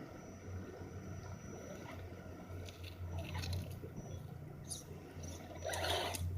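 Axial SCX10 Honcho radio-controlled scale crawler truck driving, its drivetrain giving a steady low hum under irregular crunches and scrapes from the tyres on rocks and gravel, the loudest crunch near the end.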